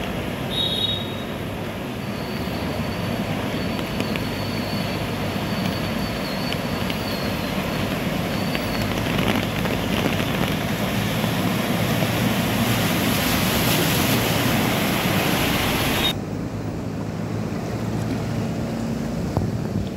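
A bus wading through deep floodwater, its engine and the rush of displaced water growing louder as it approaches. Then an abrupt cut, near the end, to a quieter, steady rush of floodwater.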